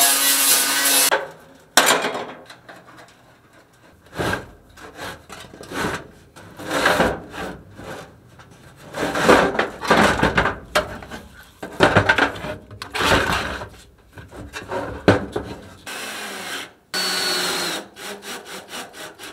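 An angle grinder runs for about the first second, grinding off a riveted piece of the car's steel body. Then come irregular rough scraping and rubbing strokes as a wiring harness is worked along the floor tunnel. Near the end a cordless drill runs in short spins with a thin whine, driving a fastener into the sheet metal.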